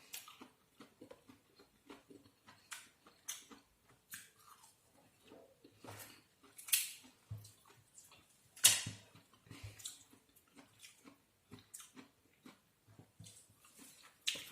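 A person chewing and crunching food close to the microphone, with irregular wet smacks and clicks and two louder crunches about seven and nine seconds in.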